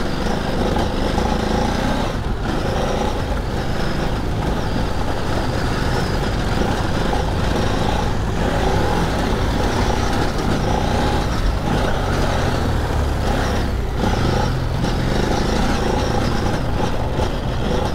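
Ducati Desert X's 937 cc L-twin engine pulling the bike up a steep dirt climb, with the revs rising and falling and a few brief throttle lifts, about two seconds in and twice near fourteen seconds. Wind and tyre noise on the dirt mix in.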